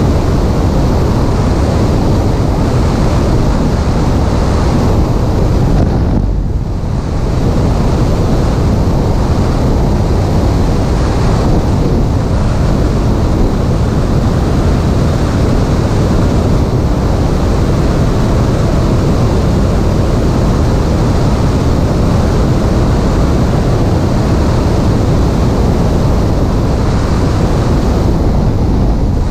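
Steady, loud wind rush from air streaming over the microphone of a camera mounted on a Piper Cherokee's stabilator, briefly dipping about six seconds in.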